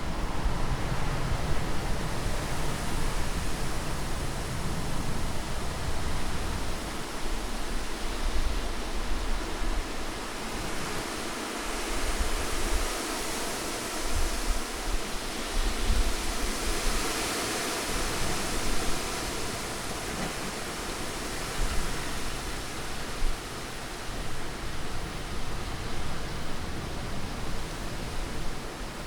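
Steady rushing wind noise with no breaks, swelling and growing brighter for a few seconds around the middle before settling back.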